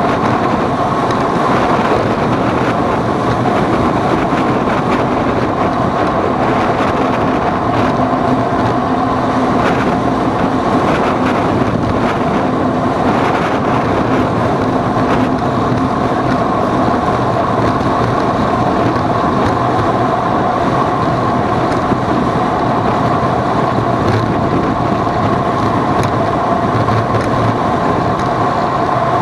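Steady running noise of a vehicle on the move, with a constant whine and wind on the microphone.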